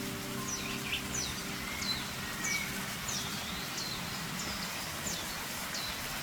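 A bird calling over and over in short, sharp chirps, roughly every half second, over a steady rush of creek water.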